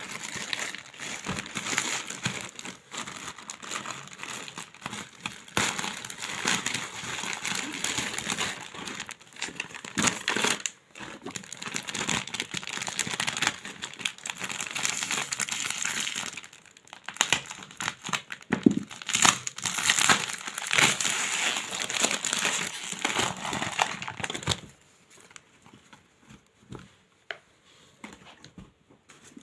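Packaging being unwrapped by hand: dense, irregular crinkling and rustling of wrapping with many sharp crackles, stopping about twenty-five seconds in, after which only a few faint taps are left.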